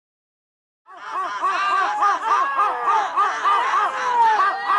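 Silence, then about a second in a crowd of spectators starts shouting rapid, repeated calls over one another as racing pigeons fly in overhead.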